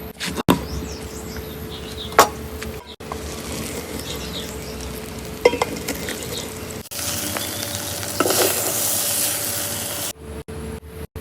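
Cooking at a pan: a spoon stirring, with a few sharp knocks against the pot. From about seven seconds in comes a steady frying sizzle lasting about three seconds.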